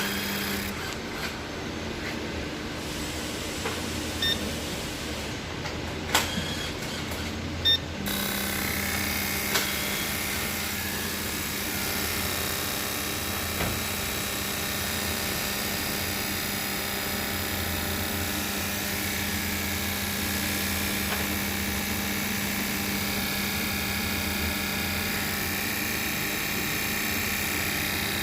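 Toyota Camry engine running steadily at idle, with a few sharp clicks in the first eight seconds.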